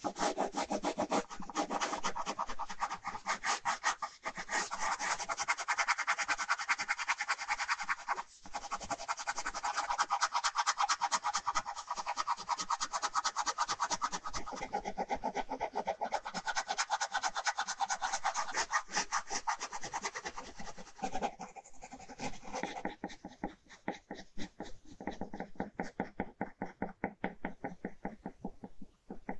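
Ballpoint pen scratching across paper in fast, dense back-and-forth hatching strokes. From about two-thirds of the way through, the strokes become lighter and more widely spaced.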